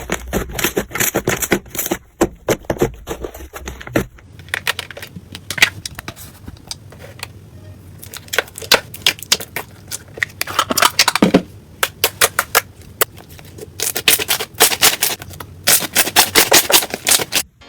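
Slime being squeezed and poked, making rapid sticky clicks and crackling pops in uneven bursts, thinning out briefly in the middle and bunching up thickly near the end.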